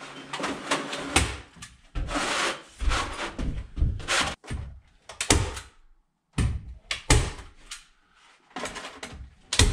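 Provent rafter vent baffles rustling and scraping against the rafters as they are pushed into place, with a hand staple gun snapping several times at irregular gaps as they are stapled to the roof sheathing.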